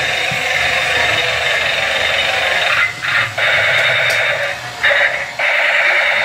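Battery-operated toy tank playing its electronic battle sound effects through a small, tinny speaker. A steady noisy sound comes first, then from about three seconds in rapid repeating bursts, broken twice by short gaps.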